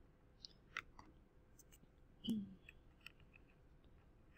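Faint small clicks and taps of pens being handled and swapped over paper, with a brief low voiced hum about two seconds in.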